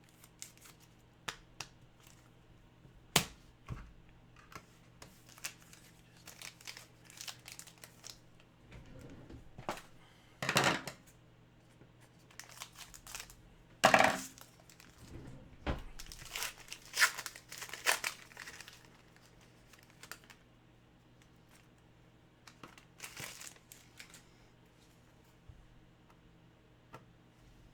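Trading-card pack wrapper crinkling and tearing, with cards being handled: scattered rustles and sharp clicks, the loudest about 10, 14 and 17 seconds in.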